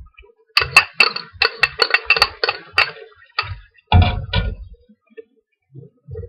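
Knife chopping cilantro on a cutting board: a quick run of about a dozen chops, about five a second, then a few slower strikes, the heaviest a dull knock about four seconds in.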